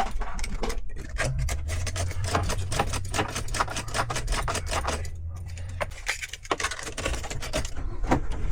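Rapid, irregular clicking and tapping over a low steady hum, made while a car key remote is being programmed.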